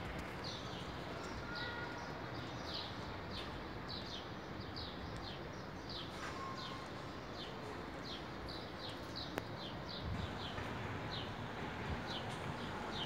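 A small bird chirping over and over in short, high, downward notes, about two a second, over a steady hiss of breeze and leaves.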